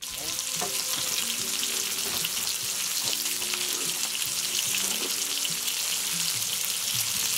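Pork belly slices, onions and peppers frying in a hot pan, a steady, even sizzle that starts abruptly.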